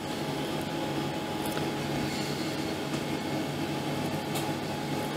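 Steady hum and rush of a kitchen ventilation fan, with a few faint taps of a knife on a wooden cutting board as a chicken breast is sliced open.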